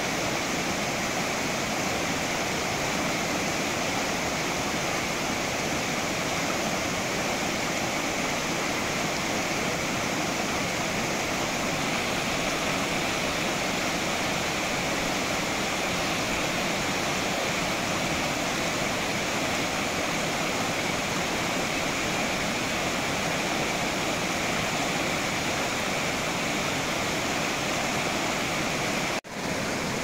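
Fast mountain stream rushing over a rocky bed in white-water rapids, a steady full sound of running water. It drops out for a moment about a second before the end.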